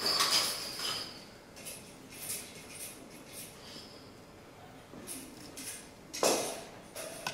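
Props being handled: a plastic bag rustling and small objects clinking and rattling in scattered short bursts, with one louder clatter about six seconds in.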